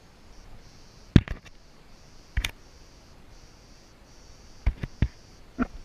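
A series of sharp, short clicks and knocks, about seven in all, several coming in quick pairs, over a quiet background.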